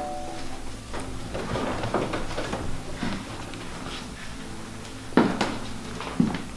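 People moving about on a hard floor with soft scattered knocks. Then, near the end, two sharp clunks about a second apart as a door's handle and latch are worked to open it.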